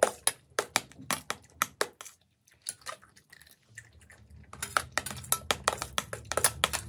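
Metal spoon clinking and scraping against a plate while eating: a quick run of sharp clicks that pauses about two seconds in and picks up again in the second half.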